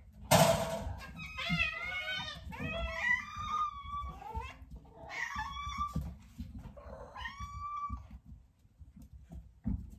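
Several hungry house cats meowing over one another for their food, calls rising and falling in pitch and repeating. A loud short rush of noise about half a second in.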